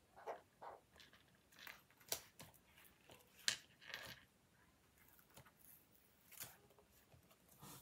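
Faint, irregular taps and short scratches of a felt-tip marker dotting and stroking on notebook paper.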